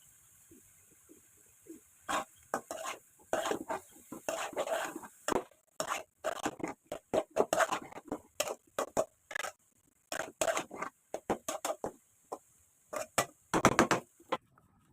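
A dense, irregular series of sharp knocks and clicks, several a second, starting about two seconds in and stopping just before the end.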